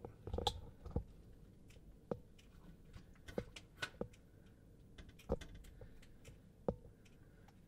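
Faint, irregular clicks and knocks, about a dozen short sharp taps spread unevenly over the seconds, against quiet room tone.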